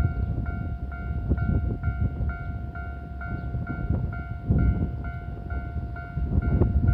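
Level-crossing warning bell ringing in a steady electronic ding about twice a second, with a train rumbling low underneath as it passes the crossing.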